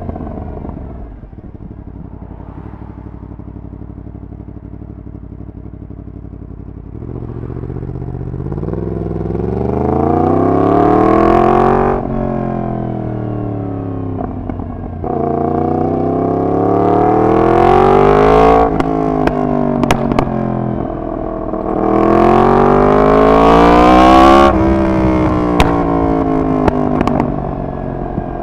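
Yamaha MT-10's crossplane inline-four through a de-catted full exhaust system. It runs low and steady for several seconds, then pulls three hard accelerations, each a long rising note that drops off suddenly. A few sharp cracks come between the pulls.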